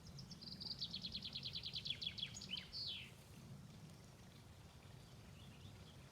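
A songbird singing a fast trill of high notes, ending in a few falling notes about three seconds in, over a low steady background rumble.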